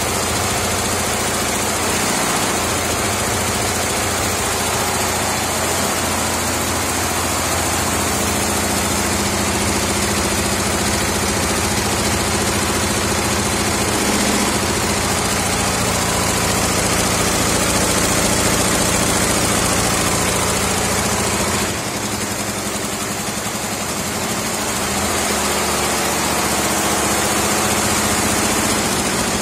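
A 68-head, six-colour multi-head embroidery machine running: a loud, steady, dense mechanical noise from many needle heads stitching together over a low hum.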